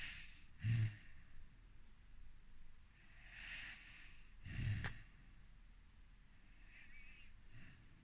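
Four-month-old Rhodesian Ridgeback puppy snoring in its sleep: each slow breath is a soft hiss followed by a short low snort, about every four seconds, three times. The snort about a second in is the loudest.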